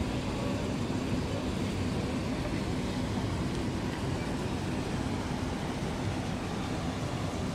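Steady low rumble of a moving vehicle heard from inside its cabin, with a faint steady hum.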